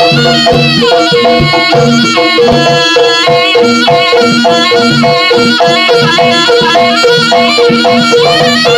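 Live jaranan gamelan music: a shrill double-reed slompret plays a wavering melody over kendang drum strokes and steadily repeated gong-chime notes.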